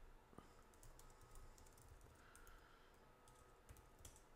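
Faint computer keyboard typing: a few scattered keystrokes, most of them bunched together near the end.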